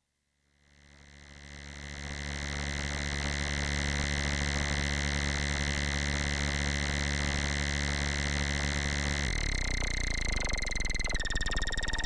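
Background music: an electronic drone of held tones that fades in over the first two seconds and then holds steady. About nine seconds in it changes to a fast pulsing texture, with the pitch stepping down near the end.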